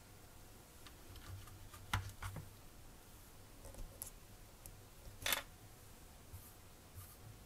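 A few light clicks and taps of small model parts being handled, with one louder short scrape a little over five seconds in.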